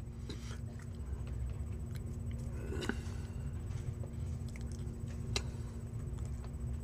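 Steady low rumble and hum of room noise, with a few faint scattered clicks and rustles, the clearest about three seconds in and again past five seconds.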